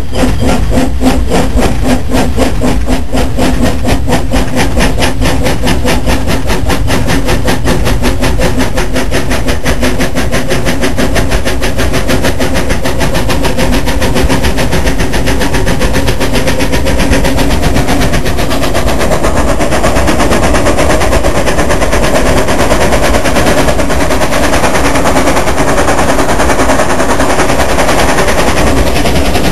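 Narrow-gauge steam locomotives working a double-headed train, heard from the footplate: rapid, even exhaust chuffs over a steady hum. About two-thirds of the way in, the beats blur into a denser continuous rush.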